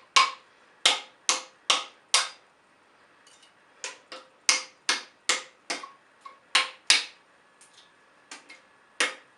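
Hammer blows driving a thin wooden wedge into the top of a wooden axe handle, seating it in the eye of a double-bit axe head to lock the head on. About five quick blows, a pause of a second or so with faint taps, then a steady run of a dozen or so blows that grow lighter near the end.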